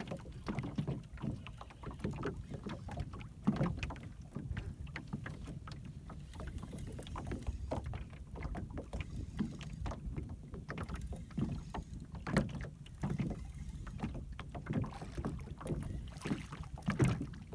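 Water slapping against the hull of a small aluminum jon boat, with wind rumbling on the microphone and irregular light clicks and knocks throughout, as a spinning reel is cranked to bring in a hooked channel catfish.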